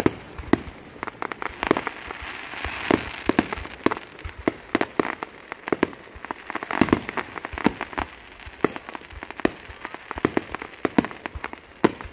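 Fireworks grand finale: aerial shells bursting in a rapid, irregular barrage of sharp bangs, several a second, over a constant rush of noise.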